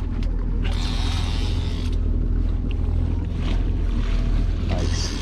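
Twin 200-hp outboard motors running steadily at trolling speed, a constant low drone. Water splashes briefly about a second in as the landing net is worked in the wake.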